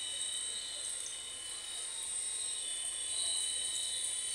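Water running steadily out of a garden hose over a wet cat and onto the tiled floor, an even hiss.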